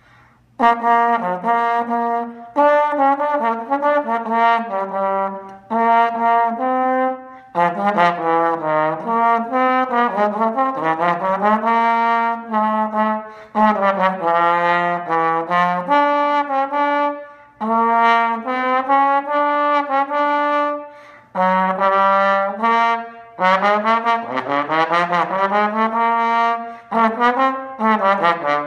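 Solo slide trombone playing unaccompanied phrases, with short breaks between phrases. Several notes slide smoothly up or down in pitch.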